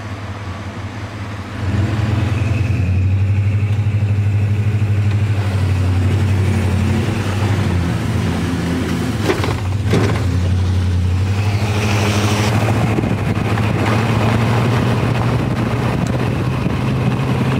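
Pickup truck driving on a wet dirt road, heard from inside the cab: a steady low engine drone with road noise, getting louder about two seconds in, with two short knocks about halfway through.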